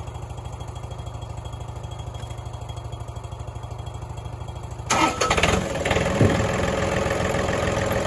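Tractor engine turning over on the starter with a steady low pulsing, then catching about five seconds in and running loud and steady.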